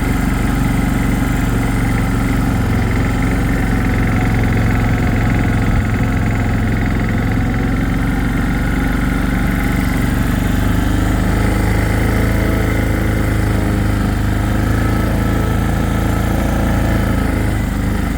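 Four-wheeler (ATV) engine running steadily as it is ridden through deep snow, its pitch shifting a little about halfway through.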